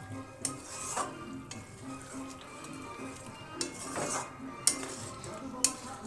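A metal spoon stirring chicken curry in a cooking pan, with several sharp knocks and scrapes against the pan and a faint sizzle from the hot pan.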